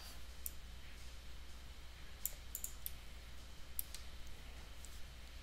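A few scattered computer mouse clicks, two or three close together in places, over a faint steady low hum.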